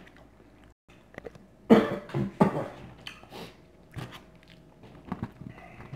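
A man coughing, three loud coughs in quick succession about two seconds in, followed by quieter mouth and chewing sounds.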